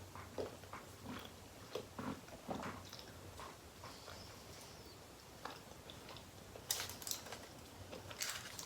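Close-miked chewing and biting while eating: faint wet mouth clicks and smacks, with two louder sharp crackles near the end.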